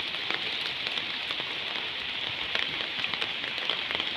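Steady rain pattering on leaves and wet ground, with many small, sharp drop ticks scattered through it.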